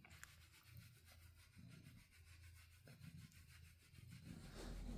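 Domestic cat purring faintly: a low rumble that swells and fades about once a second with its breathing.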